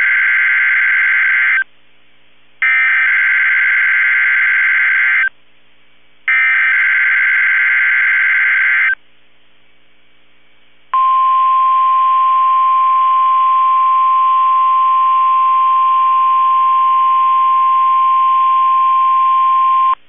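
NOAA Weather Radio test signal. First come the buzzy digital data bursts of the SAME header: the end of one burst, then two more, each about two and a half seconds long with a one-second gap between. About eleven seconds in, the steady 1050 Hz warning alarm tone starts and holds for about nine seconds.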